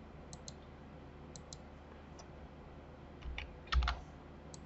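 Light clicks of a computer mouse and keyboard, many in quick pairs, with a louder cluster and a dull thump near the end.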